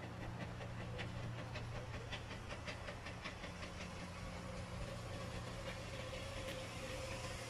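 Distant steam locomotive working towards the station, its exhaust beats a quick faint rhythm that fades out about halfway, over a steady low hum.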